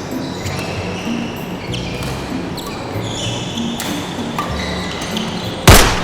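Badminton play on an indoor court: shoes squeaking on the floor and rackets hitting the shuttlecock, with one very loud sharp crack near the end.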